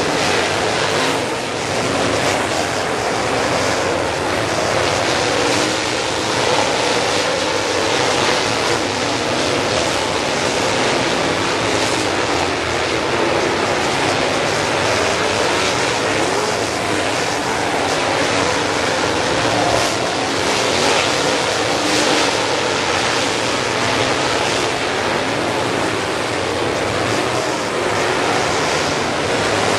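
A field of dirt late model race cars running at speed on a dirt oval, their V8 engines blending into one loud, steady wall of engine noise. Engine notes rise and fall faintly within it as cars pass.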